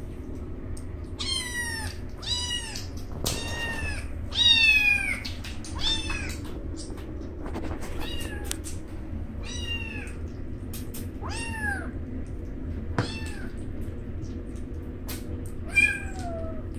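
A six-week-old kitten meowing over and over: about ten short, high calls, each falling in pitch. The loudest comes about four and a half seconds in.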